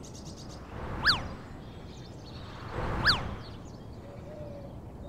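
Two cartoon whoosh-and-zip sound effects about two seconds apart, each a short swelling rush of noise topped by a quick pitch swoop up and back down, marking each new warning sign popping onto the screen. Faint steady ambience lies underneath.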